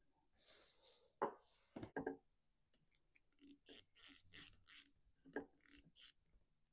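Faint handling noise from work at a chainsaw's fuel tank: scattered light clicks and ticks and a brief hiss as the fuel filter is pulled out on its fuel line and a new one is fitted.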